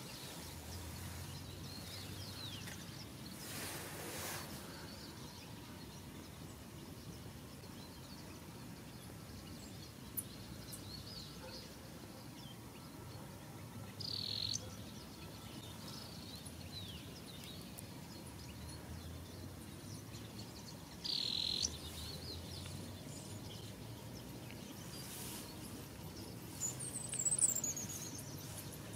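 Birds calling over a steady outdoor background hiss: scattered faint chirps, two louder calls of about half a second each, one about halfway through and one about three-quarters through, and a quick run of high, falling notes near the end. A brief gust of noise comes a few seconds in.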